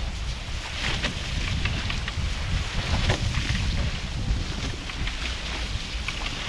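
Heavy wind noise on the microphone over water rushing and splashing past the hulls of an F18 sailing catamaran under way.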